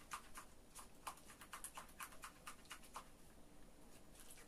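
Spatula stirring a thick aloe-gel cream in a small mask bowl: faint, quick, irregular clicks and taps of the spatula against the bowl and the sticky gel, thinning out near the end.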